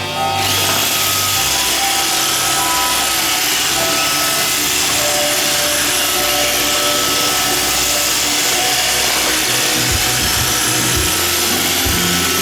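iRobot Roomba 530 robot vacuum running, a steady whir and hiss of its vacuum motor and spinning brushes that comes on about half a second in and holds level, with a few low thuds near the end.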